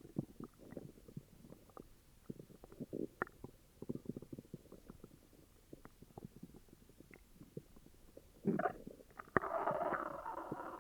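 An upset human stomach growling: a run of small gurgles and pops, then a louder gurgle about eight and a half seconds in and a longer, fuller rumble from about nine seconds on.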